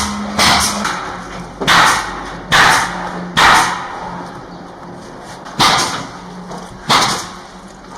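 A series of about seven short, harsh crunching or rustling noises at an uneven pace of roughly one a second, over a faint steady hum.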